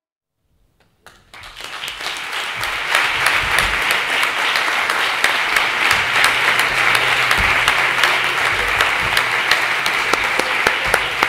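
Audience applauding: the clapping starts about a second in, builds quickly and then holds steady as dense, continuous applause.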